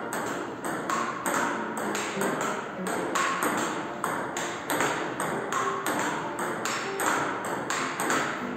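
Table tennis ball struck with a paddle and bouncing on the table in a steady rhythm of sharp clicks, about two to three a second.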